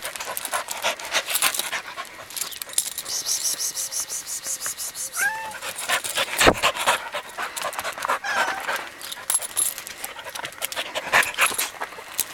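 An animal panting rapidly, with a couple of short whines near the middle and one sharp knock.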